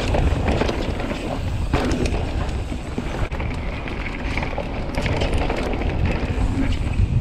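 A Commencal Meta mountain bike riding fast down a dry dirt trail: tyres rolling on the dirt under a steady low rumble, with frequent clatters and knocks from the bike as it runs over roots and stones.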